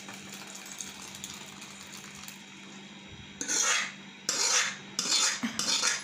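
A metal spoon scraping thick cooked dal out of a tilted metal pan into a steel pot: faint at first, then four loud scrapes in the second half, each about half a second long.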